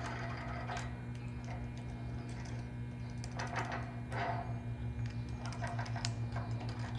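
Light clicks and scrapes of a metal hinge being held against a door jamb while the hole locations are marked, scattered and more frequent in the second half, over a steady low hum.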